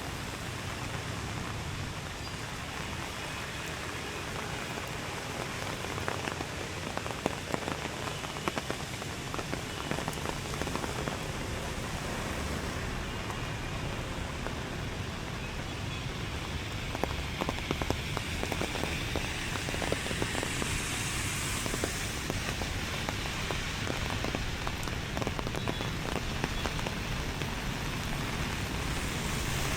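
Steady rain falling, with many sharp ticks of single drops hitting a surface.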